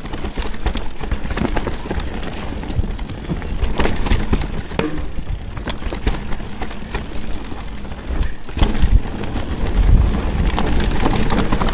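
Mountain bike rolling fast down a dirt trail: steady tyre and ground noise with frequent sharp rattles and knocks from the bike over bumps, and wind rumbling on the microphone.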